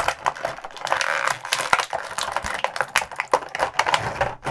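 Thin clear plastic blister tray flexed and pried apart by hand, crackling and clicking rapidly.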